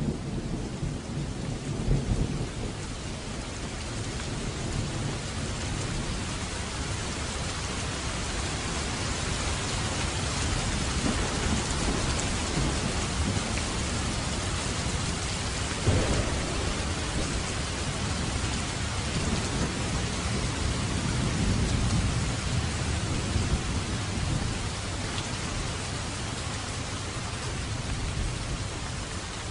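Steady heavy rain falling, with low rolls of thunder swelling near the start and again in the second half, and one sharp thunderclap about halfway through.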